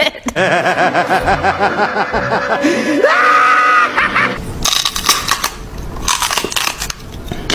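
A cat hissing in several short, sharp bursts, after a run of wavering, repeated pitched animal cries and a rising yowl about three seconds in.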